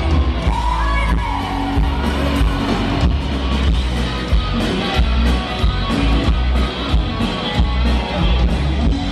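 Live band playing through a stage sound system, with a singer and electric guitar over a heavy, steady beat, and crowd noise around it.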